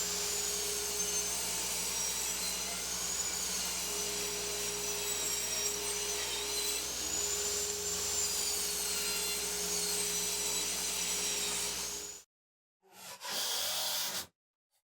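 Power saw running steadily as it cuts plywood, its high whine wavering as the blade works through the sheet. The sound cuts off abruptly about twelve seconds in, and a second short run of the saw follows about a second later.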